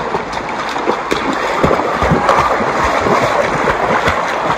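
Footsteps wading through shallow river water: a quick run of splashes, about two or three steps a second, over a steady rush of moving water.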